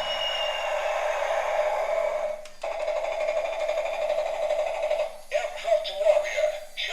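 Electronic sound from a battery toy vehicle played through a small tinny speaker: a steady buzzy tone that breaks off briefly about two and a half seconds in, then a wavering, voice-like sound near the end.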